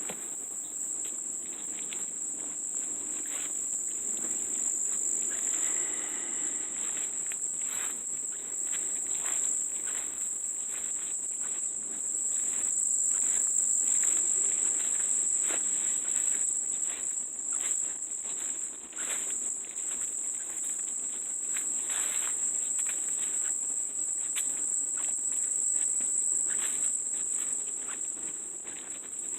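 Steady, high-pitched insect chorus, a continuous shrill drone, with footsteps walking along throughout.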